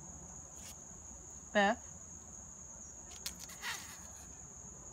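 Insects trilling steadily in one unbroken high-pitched tone.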